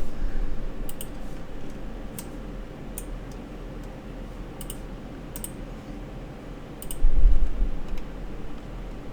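Scattered computer keyboard and key clicks, a few single taps a second or so apart, over a steady low hum, with a dull low thump about seven seconds in.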